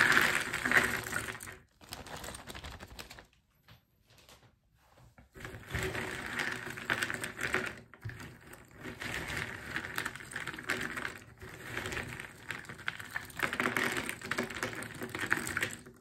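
Cardboard jigsaw puzzle pieces rattling as they pour out of a plastic bag into the box. After a pause of about two seconds, a steady clatter as hands stir and spread the pieces in the box.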